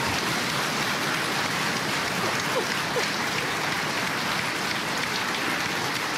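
Studio audience applauding steadily, a dense even patter of many hands clapping.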